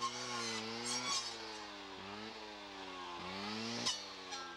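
Two-stroke brush saw (clearing saw) engine running at high blade speed, its pitch dipping briefly and recovering several times as the load on the blade changes. A sharp tick is heard near the end.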